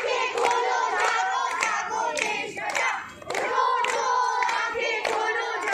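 A group of children singing or chanting in unison while clapping their hands in a steady rhythm, with a short break in the voices about halfway through.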